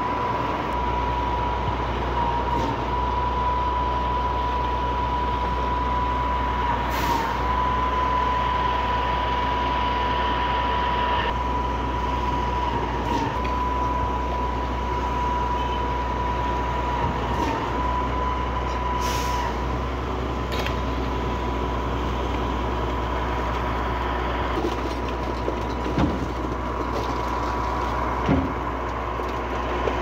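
Truck-mounted concrete pump running steadily while it pumps concrete through its boom hose: a low engine drone with a steady high whine over it and a few scattered knocks.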